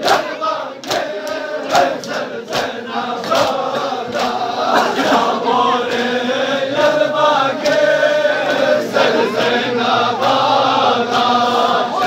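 Crowd of men chanting a Balti noha in unison, with a steady beat of hands slapping on chests (matam). The slaps are sharpest in the first few seconds and fainter under the singing later on.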